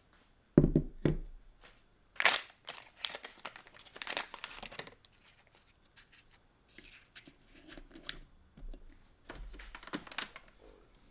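Espresso-making handling sounds. Two dull knocks and a sharp clack in the first few seconds, then a cloth rubbing and wiping a stainless-steel portafilter, with softer knocks as the portafilter is handled near the end.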